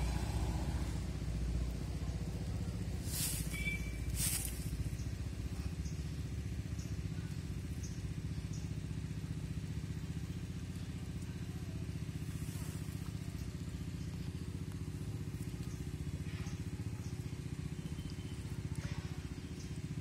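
A steady low engine hum runs without a break, with two short swishes about three and four seconds in.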